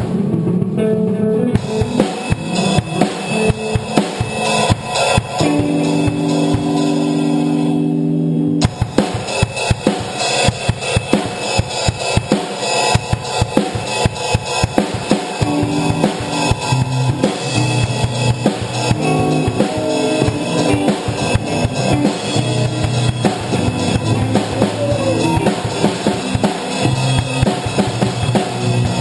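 Background music with a drum kit. Held chords in the first seconds give way, about eight seconds in, to a fast, steady drum beat.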